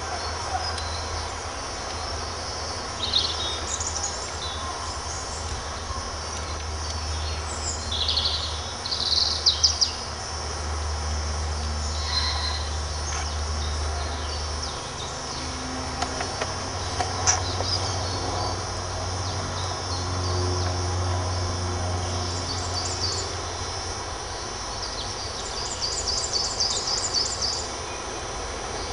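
Woodland birdsong: several birds singing short phrases now and then, with a fast trill near the end, over a low steady rumble.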